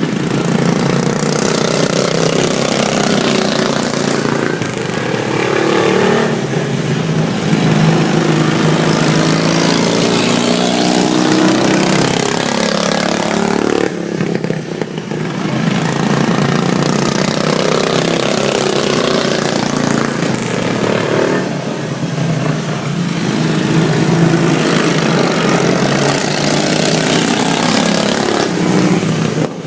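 Super stock racing lawn mower engines running hard at full throttle, several at once, their pitch rising and falling repeatedly as they rev, with a short lull about halfway through.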